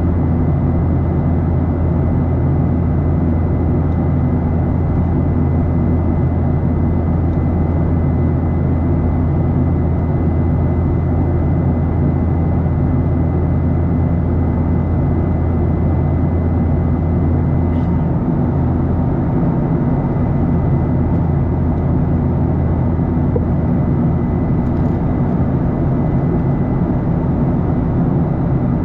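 Boeing 737-800 cabin noise: its CFM56-7B engines' steady drone with airflow rush, and a thin high whine over them. About 18 seconds in, the low hum and the whine both ease slightly.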